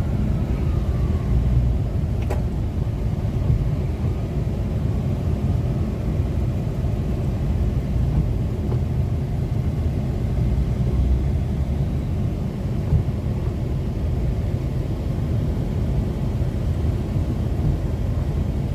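Steady low rumble of a car's engine and tyres heard from inside the moving car, with a single light click about two seconds in.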